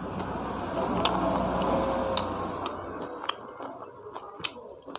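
Close-miked eating sounds: a man chewing a mouthful of rice and pork curry while his fingers mix food on a banana leaf, with sharp wet smacks about once a second. The noise is densest for the first three seconds, then quieter.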